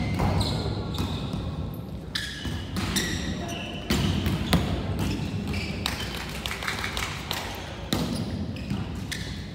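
Volleyballs being struck and hitting the floor across several courts: a string of sharp slaps and thuds, the loudest near the start, about four seconds in and near eight seconds, echoing in a large sports hall, with short high squeaks or calls in between.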